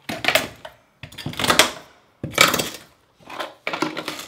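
Several scraping strokes of a small linoleum knife working thin-set out of the grout joints between freshly set porcelain wall tiles.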